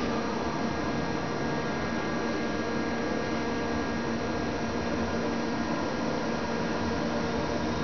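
ThyssenKrupp roped hydraulic elevator travelling between floors, heard from inside the car: a steady hum made of several even tones over a constant rushing noise.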